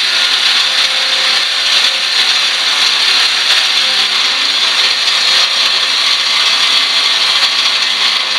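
Electric jigsaw (saber saw) cutting through sheet steel, running steadily with a loud buzzing rasp.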